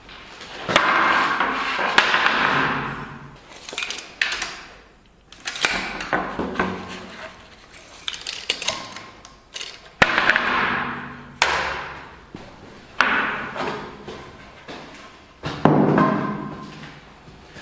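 Metal workpieces being handled and knocked: a series of sharp clanks and knocks, several followed by a ringing noise that fades over a second or two.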